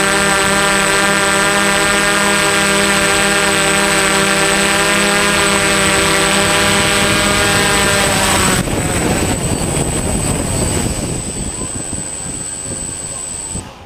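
Multirotor drone's motors and propellers buzzing at a steady pitch, which cuts off about nine seconds in, leaving a rougher, quieter rushing noise.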